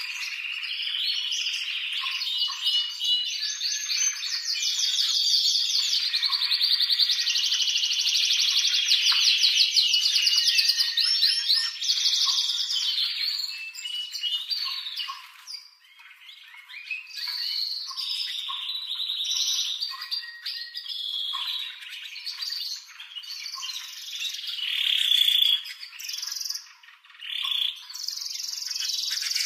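Domestic canary singing a long run of rapid trills and rolls, with brief dips around the middle and just before the end.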